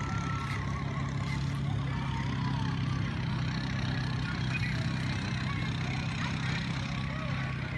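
Vehicle engine running steadily, an even low hum with no change in pitch.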